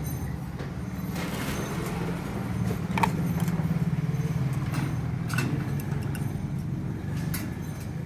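Sharp knocks as a rainbow lorikeet bangs at its plastic bath tub, the loudest about three seconds in and others past five seconds and near the end. A steady low rumble runs underneath.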